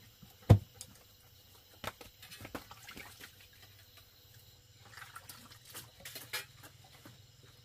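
Hands swishing and splashing in a plastic basin of water as they are washed, in small scattered splashes. A single sharp knock about half a second in is the loudest sound.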